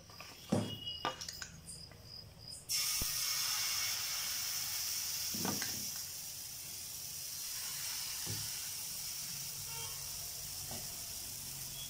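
Pancake batter sizzling in hot ghee on a tawa. The sizzle starts suddenly about three seconds in and then holds steady.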